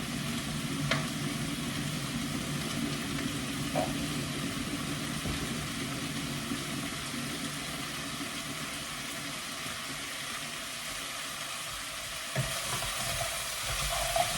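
Chicken curry with carrots and potatoes sizzling steadily in a pan while being stirred, with a few light clicks and knocks of the spoon against the pan.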